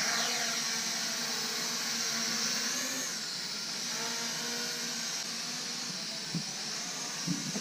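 Asbww GPS quadcopter's propellers and motors whining as it takes off and hovers. The whine starts abruptly and steps up in pitch about three seconds in.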